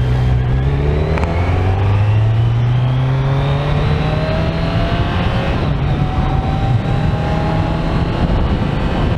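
Kawasaki Z900's inline-four engine pulling under acceleration, its pitch rising steadily for several seconds, then a change about five and a half seconds in and a gentler rise again.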